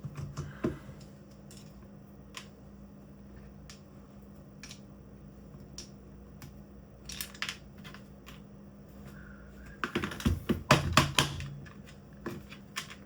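Scattered small clicks and taps of a screwdriver backing screws out of a cordless drill's plastic housing, with a cluster of louder clicking and rattling about ten seconds in.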